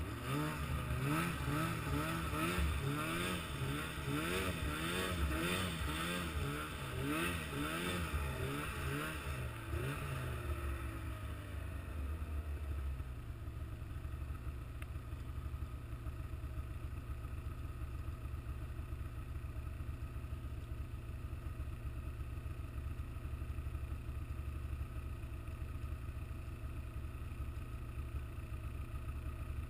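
A vehicle engine revving up and down over and over for about ten seconds, then settling into a steady low idle.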